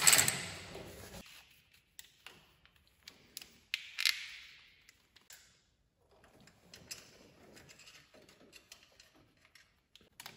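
Handling noise from tools and wiring on a utility vehicle's plastic panel: clicks, taps and light knocks, with two louder brief rasping noises, one at the start and one about four seconds in. Quieter rustling of cable follows as the charger lead is routed by hand.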